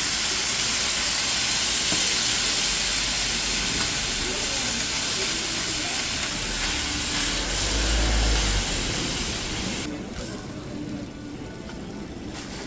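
Loud steady hissing from street-food cooking at a market stall, which cuts off sharply about ten seconds in and gives way to a quieter mix of sizzling and voices.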